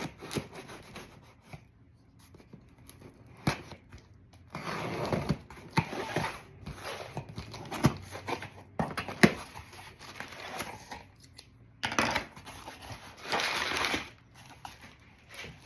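A cardboard box being opened and unpacked by hand: irregular tearing, rustling and crinkling of packing material, with scattered sharp clicks and knocks.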